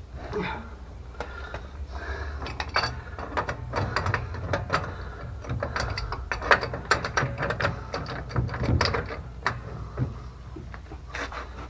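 Metal tool clicking and scraping against a seized pipe fitting on a water pump's plumbing as it is worked to break it loose: many irregular sharp clicks.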